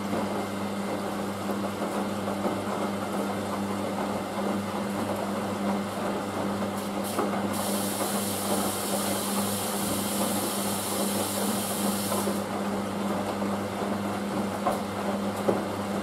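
Hoover DYN9144D3X washing machine running mid-cycle, with a steady low hum that stops right at the end. A loud hiss starts about halfway through and lasts about five seconds.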